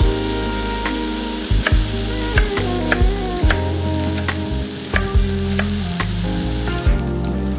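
Chef's knife slicing a leek into rings on a wooden cutting board: a series of crisp cuts striking the board, over background music.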